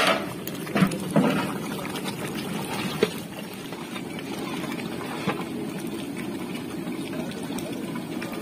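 A large pot of fish curry boiling hard over its fire, a steady low bubbling rumble. A few knocks come from the long ladle against the pot in the first few seconds.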